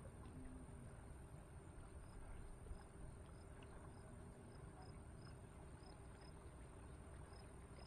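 Near silence: faint lakeshore ambience with a low rumble and faint short high chirps repeating about twice a second.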